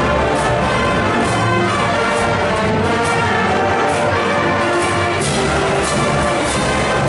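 A school pep band playing live: trumpets, trombones and baritone horns hold a loud melody over a steady beat of bass drum and cymbal hits.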